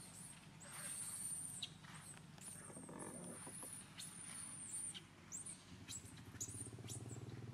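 Faint, very high-pitched squeaky animal calls, repeated: some held for about a second, and short rising chirps in the second half, over a low steady hum.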